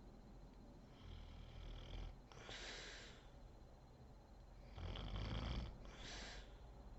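A sleeping woman snoring: two slow breaths, each a low snore followed by a short airy hiss, the second louder than the first.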